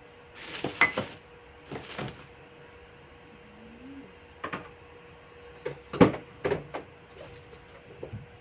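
Household objects being handled: a string of knocks and clatters like containers, shelves or a cupboard or fridge door being moved and set down, loudest about a second in and about six seconds in, over a faint steady hum.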